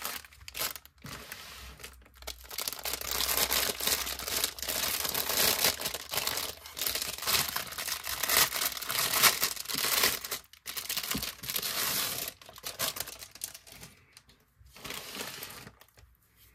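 Thin plastic packaging crinkling and rustling under hands as a plastic-wrapped parcel is handled and opened, a dense crackle that thins out after about twelve seconds into softer rustles, with one more short rustle near the end.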